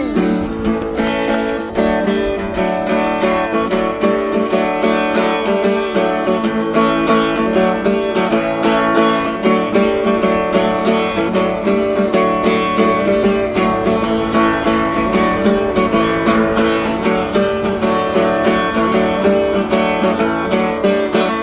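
Solo acoustic guitar, capo on the neck, played in a quick, steady rhythm of picked and strummed notes.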